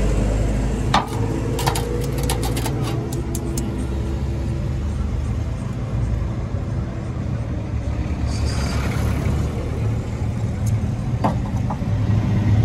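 An engine running steadily, a low even hum, with a cluster of light clicks and taps about one to three seconds in and a couple more near the end.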